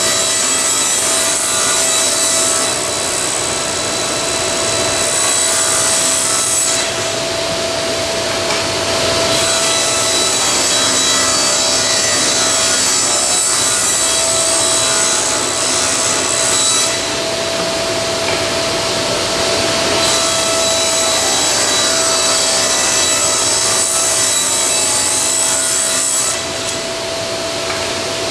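Table saw ripping plywood into strips: three cuts of about seven seconds each, with the blade spinning free in short gaps between them. A steady whine sits under the cutting noise.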